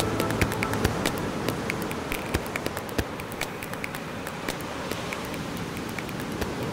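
Steady hiss of water, sea or rain, studded with many small crackling ticks at irregular intervals.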